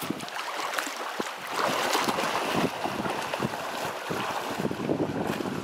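Shallow lake water splashing and sloshing as a wading child and a swimming goldendoodle move through it, in many small irregular splashes over a steady rush of water, with wind buffeting the microphone.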